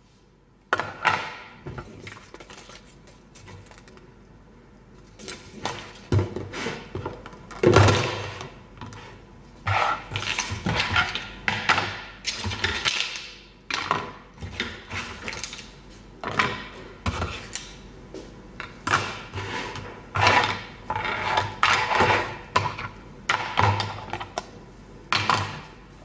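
Aliskid clear plastic food storage containers and their clip-lock lids being handled: irregular plastic clacks, knocks and rubbing as lids are pulled off and set down on a wooden table.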